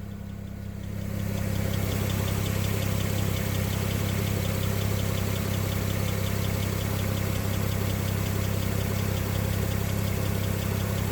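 BMW 335i's twin-turbo inline-six running steadily, getting louder about a second in, with a fast, even ticking high above the engine note: the weird sound the owner is trying to pin down.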